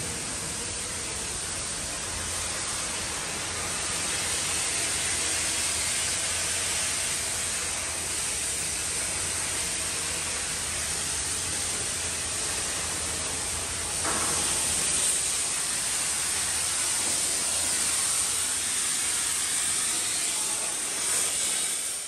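A steady, even hiss that runs without a break, growing a little louder about four seconds in.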